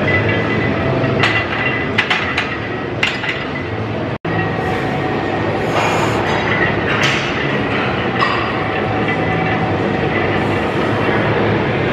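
Barbell plates clinking on a loaded squat bar, a few sharp clinks in the first three seconds over a loud, steady background noise, which cuts out briefly about four seconds in.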